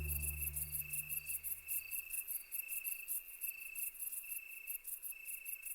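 Crickets chirping in a steady, regularly repeating rhythm of high pulses. Low tones of background music fade out in the first two seconds.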